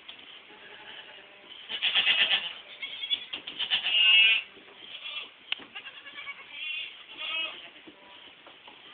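Boer goat kids bleating: several high, wavering calls, the loudest about two and four seconds in and fainter ones later, with a few small knocks in between.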